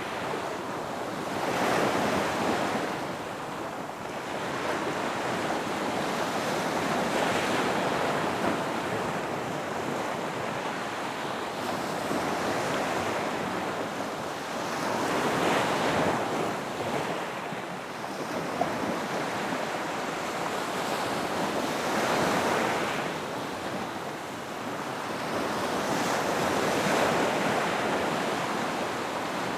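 Ocean waves surging and washing back, in a wide rushing hiss that swells and eases about every five to six seconds.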